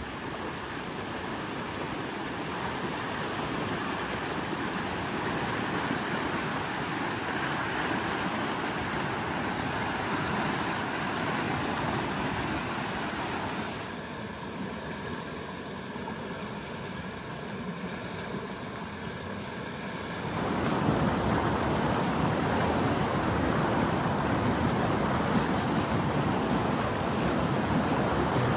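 Muddy creek in flood rushing past a low footbridge: a steady wash of fast-moving water. It drops a little partway through, then comes back louder.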